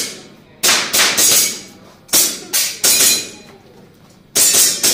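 Airsoft pistol shots in three quick strings of about three sharp cracks each, with short pauses between the strings.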